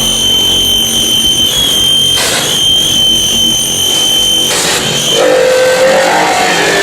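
Harsh noise music: a loud wall of distorted noise with a piercing, steady high whine. About four and a half seconds in, the texture switches abruptly and the whine drops out, leaving rougher noise with a lower wavering tone.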